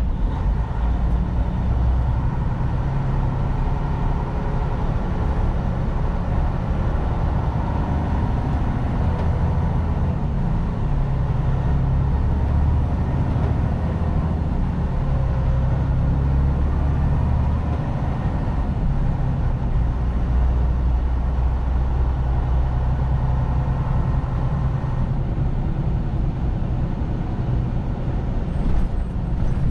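Heavy semi truck's diesel engine and road noise while driving: a steady, low drone.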